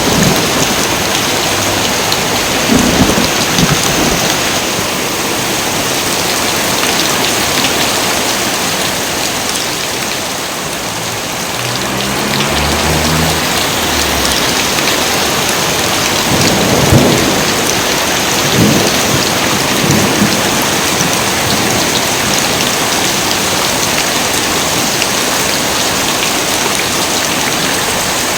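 Heavy rain pouring steadily, with thunder rumbling several times; the strongest rumble comes a little past halfway.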